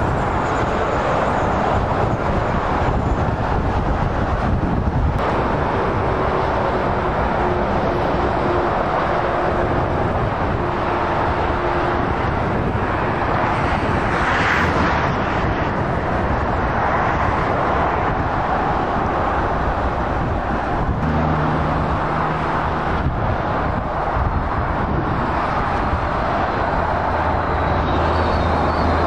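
Steady motorway traffic: tyre noise on the road and the diesel engines of passing articulated lorries. A louder vehicle pass comes about halfway through, and a lorry engine's low drone comes in near the end.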